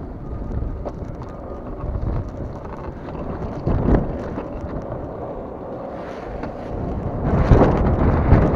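Wind buffeting the microphone mixed with the rumble of longboard wheels rolling over asphalt, growing louder about seven seconds in.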